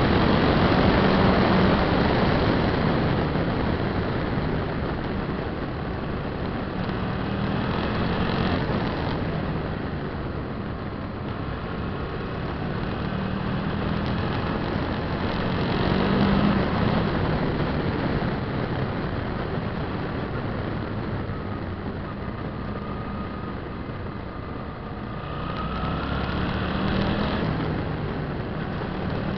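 Suzuki V-Strom 650's V-twin engine running under way, its note swelling and easing several times with the throttle, over steady wind and road noise.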